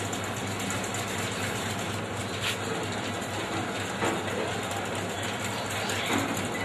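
Steady room noise of a crowded hall as people file through, with no distinct events.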